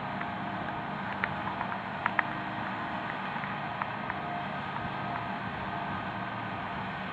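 Aebi TT270 slope tractor running steadily under load while its Alamo flail mower cuts tall grass, with a few sharp ticks about a second and two seconds in.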